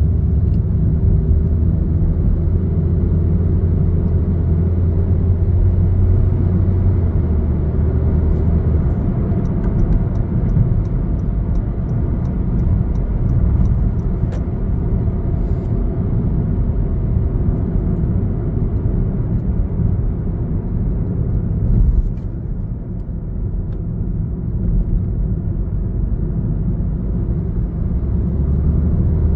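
Car engine and tyre noise heard from inside the cabin while driving: a steady low rumble with a faint engine hum.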